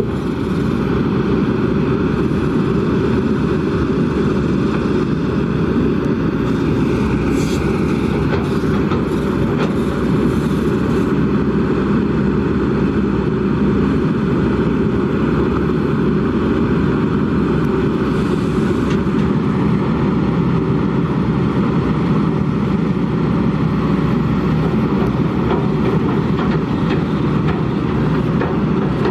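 Kobelco SK200 hydraulic excavator's diesel engine running steadily at working revs, with a few brief higher-pitched scrapes or hisses about a quarter of the way in and again past the midpoint.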